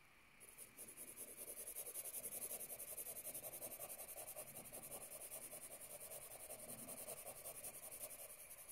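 Pencil shading on lined notebook paper: quick, faint back-and-forth hatching strokes, about six a second, starting about half a second in.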